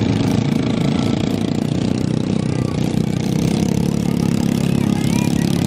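Vehicle engine running steadily with an even low hum.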